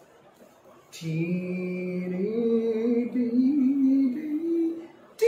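A man's voice humming a slow, wordless tune in long held notes that step up in pitch, starting about a second in.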